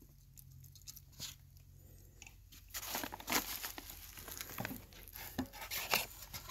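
Crinkling and scraping of hands working a PVC pipe joint over a plastic sheet: the solvent-cement dauber dabbing inside the fitting, then the pipe being pushed into it. The rustling gets louder about three seconds in.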